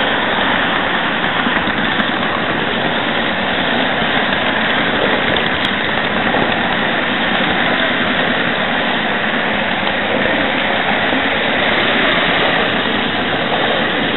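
Steady whirring noise of a model train running along its track, picked up by a small camera riding on the train.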